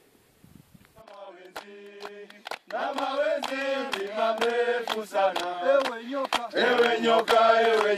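Male voices singing a Swahili song in chant-like style, starting about a second in and growing louder.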